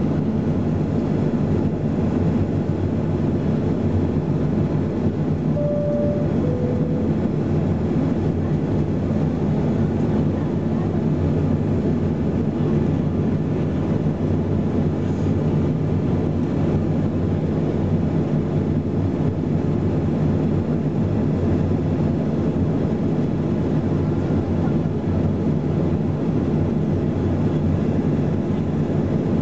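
Boeing 737-300's CFM56 jet engines at idle, heard from inside the cabin as a steady low hum while the aircraft waits or taxis slowly. A brief two-note falling tone sounds about six seconds in.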